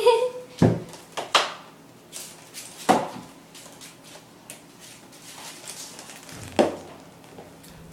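A kitten batting a small toy ball about. There are four sharp knocks and clatters spread over several seconds, with quiet between them.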